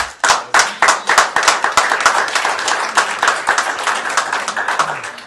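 Small audience applauding: many hands clapping in quick, irregular succession, thinning out near the end.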